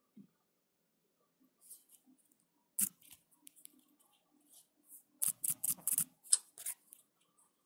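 Irregular sharp clicks and crackles: one loud click about three seconds in, then a dense run of them about five seconds in, over a faint low hum.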